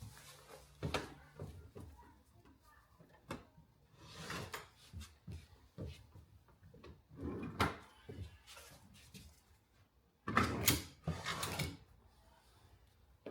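Wooden campervan bench seat being slid out and moved on its runners: scattered knocks and several sliding scrapes, the loudest near the end.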